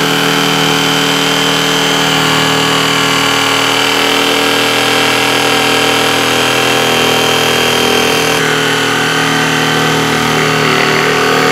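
Bosch corded electric jigsaw running continuously, its blade sawing a curved cut through a thick wooden board.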